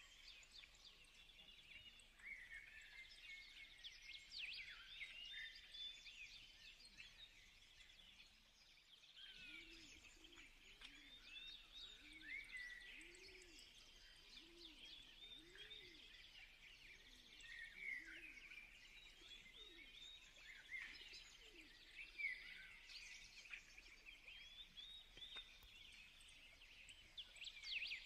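Faint bird chirping: many short, quick calls throughout, with a lower call repeated steadily for several seconds in the middle.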